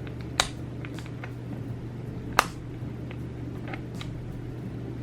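Light plastic clicks and ticks as a keycap puller is worked onto the keycaps of a Womier SK71 mechanical keyboard. Two sharper clicks stand out, about half a second in and about two and a half seconds in, over a steady low hum.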